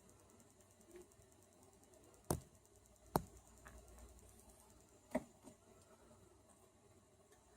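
Three short, sharp sneezes, the first a little over two seconds in, the next about a second later, the last two seconds after that, with a faint sniffly background between them.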